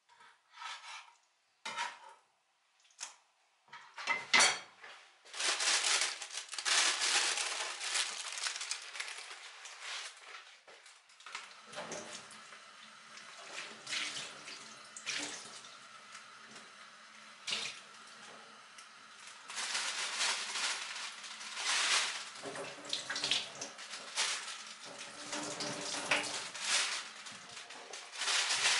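A few short knocks, then a kitchen tap running into a sink with water splashing and the clink of dishes or a pan. The flow eases in the middle and picks up again near the end.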